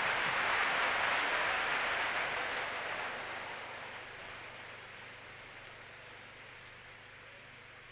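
Large theatre audience applauding, the clapping dying away gradually from about two seconds in.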